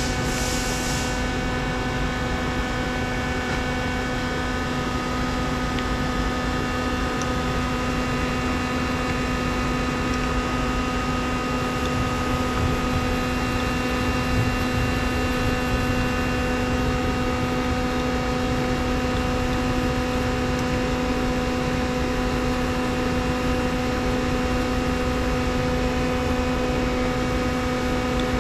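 Steady electric machine hum from a powered-up CNC lathe, holding one mid-low tone with fainter higher tones over a constant hiss. A brighter hiss drops away about a second in.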